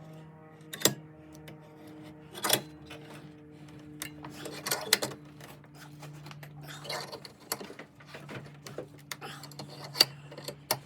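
Sharp clicks and knocks of metal tools and air-suspension manifold fittings being handled at a bench vise, the loudest about a second in, two and a half seconds in and near the end, over a steady low hum.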